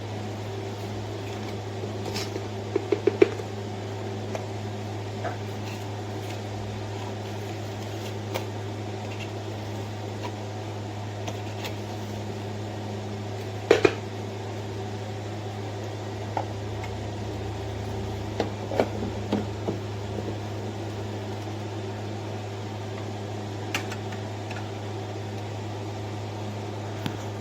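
Espresso machine's pump humming steadily while the shot brews, with a few light clicks and clinks, the loudest a few seconds in and about halfway through.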